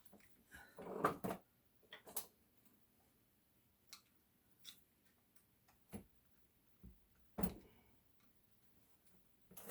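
Scattered light metal clicks and knocks, with a short burst of scraping and clinking about a second in, from hand tools working the soft copper off the steel core of a water heater element.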